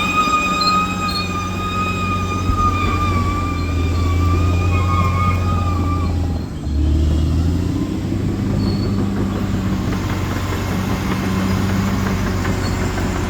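Bulldozer engine running steadily under load, with a high-pitched squeal from the machine for the first six seconds and a brief drop in engine note about six and a half seconds in.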